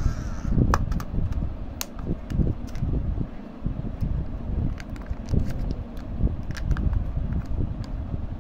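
Plastic surprise-egg capsules and their foil-sealed trays being handled, with scattered sharp clicks and crackles over a steady low rumble.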